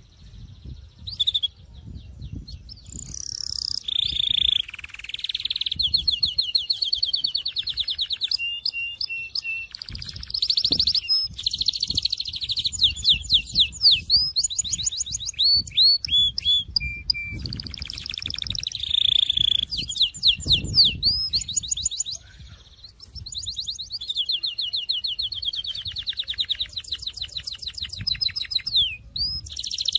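Domestic canary singing a long, varied song of fast trills and rolling runs of quickly repeated notes, with a short break a little past the middle.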